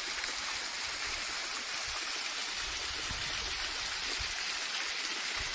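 Steady rush of water from a waterfall, an even roar with no breaks.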